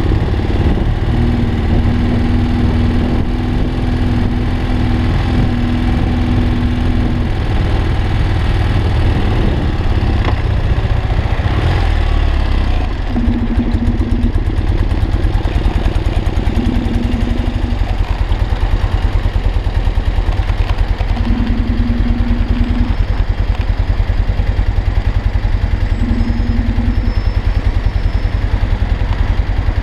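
BMW R45's air-cooled flat-twin boxer engine running as the bike rides along. About twelve seconds in it drops back to an idle with an even pulsing beat as the bike comes to a stop.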